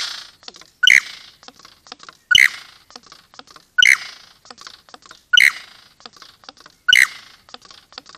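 Male superb lyrebird singing his courtship display song: five sharp, loud calls about a second and a half apart, each trailed by a patter of softer clicks.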